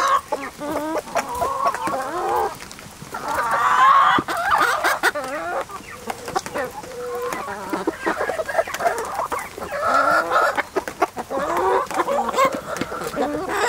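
A flock of backyard chickens clucking and calling over one another, several birds at once, with short gaps between the bursts of calls.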